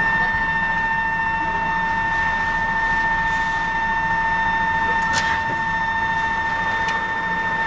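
A steady high-pitched tone holding one pitch over a low background rumble, with a sharp click about five seconds in and a fainter one near the end.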